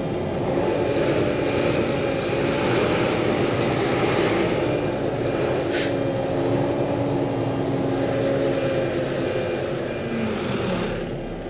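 Heavy diesel engine running hard with a steady drone whose pitch wavers slightly, from the stuck end-dump truck or the excavator working it out of the mud. A short sharp click comes about six seconds in, and the engine eases off near the end.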